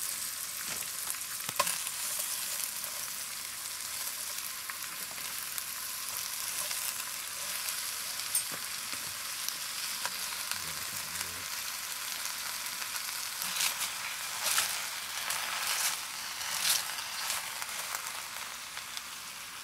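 Chopped onions, bell peppers, bacon and pork belly sizzling steadily in hot rendered fat in a pot as chopped cabbage is piled in on top. There are a few sharp pops, and a cluster of louder crackles about two-thirds of the way in.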